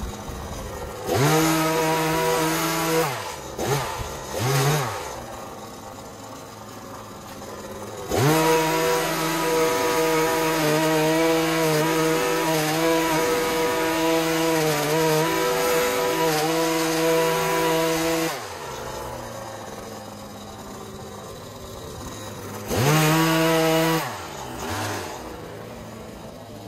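Two-stroke petrol power tool, a hedge trimmer or similar, revved to full throttle in bursts and dropping back to idle between them. A short burst comes about a second in, then a couple of quick blips, then a long full-throttle run of about ten seconds, and one more brief burst near the end.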